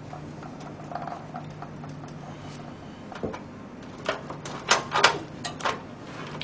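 Plastic clicks and rattles of a 4-pin Molex power connector being handled and pushed into a hard drive, with a cluster of sharp clicks about four to six seconds in. A faint steady hum lies underneath.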